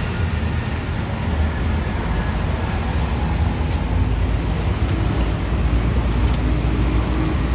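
Steady low rumble of street traffic, with a few faint light clicks scattered through it.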